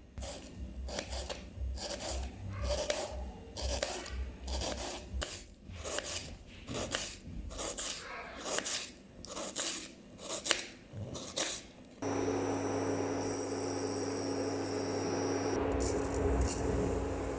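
Rhythmic rasping, scraping strokes on raw carrots, about two a second. About twelve seconds in they give way abruptly to a steady sizzle of food frying in a pan, with a low hum under it.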